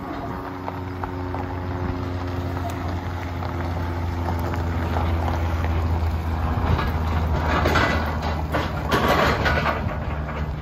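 Pickup truck towing a loaded equipment trailer on a gravel road: a steady engine hum grows louder as it approaches, then rattling and clanking from the trailer and gravel crunch in the last few seconds as it passes.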